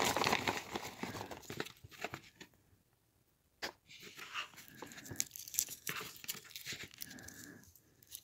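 Crinkling and rustling of a plastic candy bag and the foil wrappers of Hershey's dark chocolate Kisses being handled and peeled open. The rustle stops for about a second midway, then the foil crinkling resumes in short bursts.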